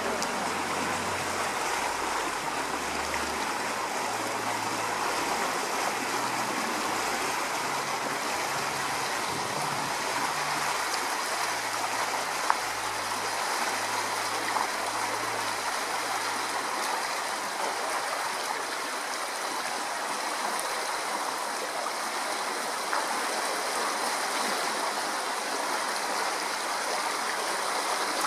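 Swollen, fast-flowing river in flood rushing and swirling past a moored ferry pontoon and over its landing, a steady rushing of water with a few brief clicks.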